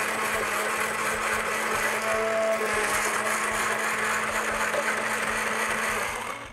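Panasonic immersion (stick) blender running steadily in a stainless steel beaker, puréeing cooked artichokes into a cream; the motor stops near the end.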